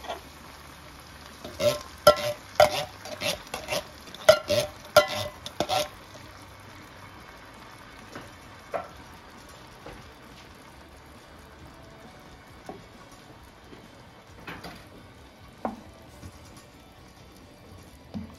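An upturned tin can is tapped and knocked repeatedly while its milk is emptied into a pan, a quick run of ringing metallic knocks lasting about four seconds. After that, a wooden spoon stirs the simmering cream sauce, with a few soft knocks.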